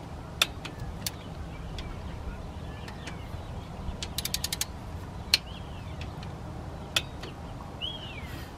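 Hand ratchet clicking as water pump bolts are tightened: a quick run of about six clicks in the middle, with single sharp clicks before and after. Faint bird chirps over a low steady rumble.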